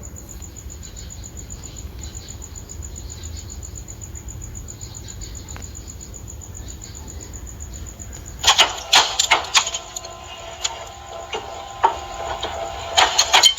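A steady low rumble, then from about eight seconds in a quick run of sharp metallic clanks and clicks, some with a brief ring.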